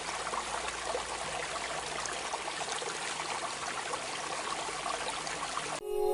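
Flowing stream water trickling and splashing steadily. Just before the end it cuts off abruptly and bell-like music tones begin.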